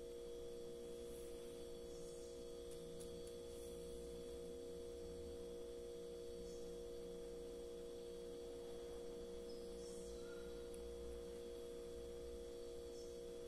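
A faint, steady hum made of several held tones.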